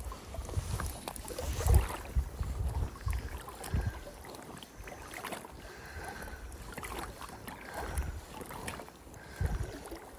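Wind buffeting the microphone in uneven gusts, with water lapping and splashing around an angler's belly boat (float tube).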